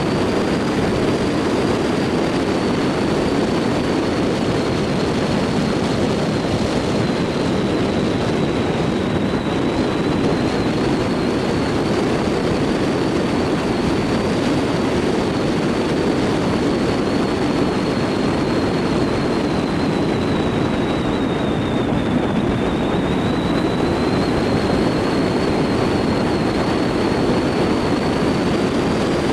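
Dacia Logan car driving at steady speed: a constant rumble of engine and tyre noise, with a thin high whine that drifts a little in pitch and dips briefly about two-thirds of the way through.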